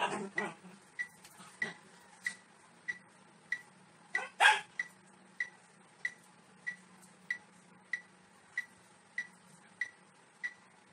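Short, even electronic ticks, about three every two seconds, pacing the leg-raise exercise. Near the start there are a couple of brief noisy bursts, and about four and a half seconds in comes one louder short yelp.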